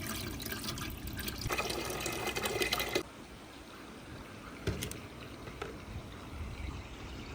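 Water running through a marble-run water slide or tank, cut off abruptly about three seconds in. A couple of light clicks follow.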